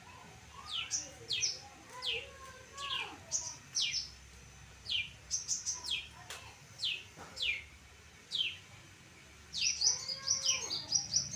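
Long-tailed shrike (cendet) singing: sharp, high notes that sweep downward, given singly and in short bursts, with a quick run of notes near the end and softer lower warbling underneath.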